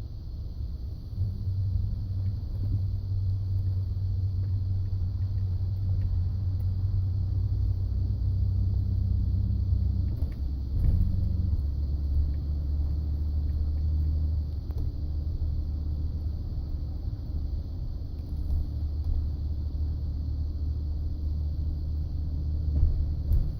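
Ford F-150 pickup on the move, heard as a low steady rumble that shifts lower about eleven seconds in, with a few light clicks around then. It is the noise the truck makes when turning right, which the owner ties to the front end seeming to engage while in 2WD and tags as the front transfer case.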